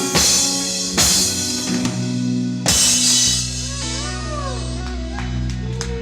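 A band with drum kit and guitar playing; cymbal crashes come three times in the first three seconds, then held low notes ring on with gliding notes above them, like a song's closing chords.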